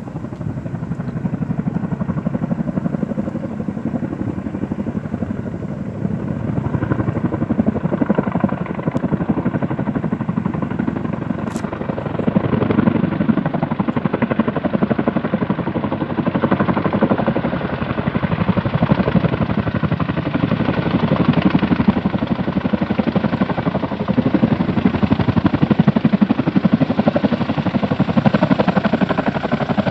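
Two Boeing CH-47 Chinook tandem-rotor helicopters approaching, their rotor beat growing gradually louder.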